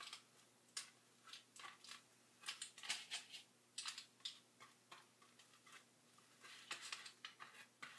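Faint, irregular scratchy swishes and ticks of a paintbrush stroking paint onto a carvable craft pumpkin, over a faint steady room hum.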